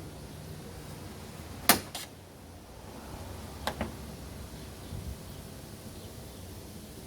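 Plastic grille clips and tabs snapping into place as a truck grille is pressed back on: two sharp snaps close together, the first the loudest, then two lighter clicks and a dull knock.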